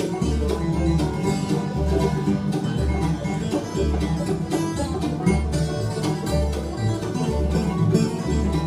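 Bluegrass band playing an instrumental break between sung verses, with plucked string lead over steady bass notes about two a second.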